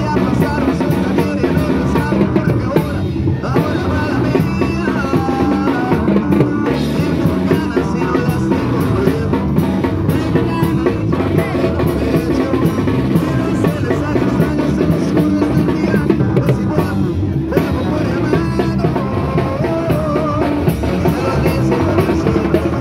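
A live band playing dance music through PA speakers, with a steady drum beat under keyboard and melody lines.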